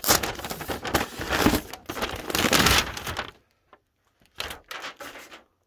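Plastic mailer bag crinkling and rustling as it is handled: dense crackling for about three seconds, then a few short rustles.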